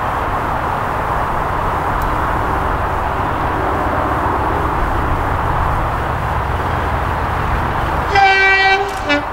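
Class 37 diesel locomotive's two-tone horn: a long high note about eight seconds in, then a short lower note, over a steady rumble from the approaching train.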